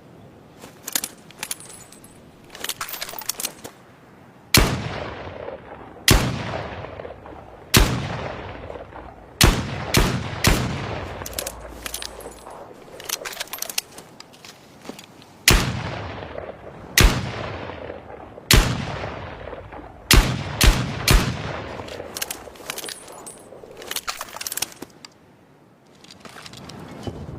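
M44 revolver firing: two strings of six shots, each crack followed by a long echoing tail, the shots in each string about one and a half seconds apart and quickening toward the end. Quieter clicks come before the first string and in the pause between the strings.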